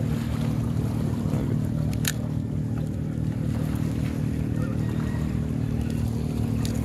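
A steady low engine drone, even in level throughout, with one sharp click about two seconds in.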